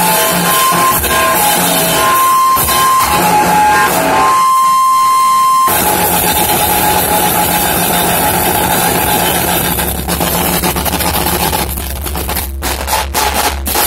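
Harsh noise music: a loud, dense wall of distorted noise with a high tone that cuts in and out in the first half, then a low drone and sharp crackles in the second half.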